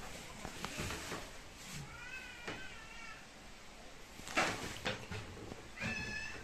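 Cat meowing twice: a wavering call about two seconds in and a shorter one near the end, with a brief loud noise in between.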